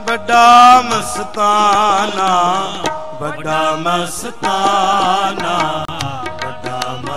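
Sikh kirtan: voices singing a wavering, ornamented devotional line over held harmonium tones and tabla strokes.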